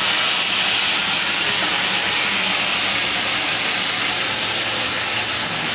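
Katla fish pieces and masala paste sizzling steadily in hot oil in a steel kadhai over a high gas flame, easing slightly toward the end.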